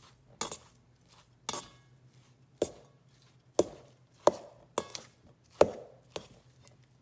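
A big kitchen knife chopping boiled potatoes in a pan, the blade knocking on the bottom of the pan about eight times at uneven intervals.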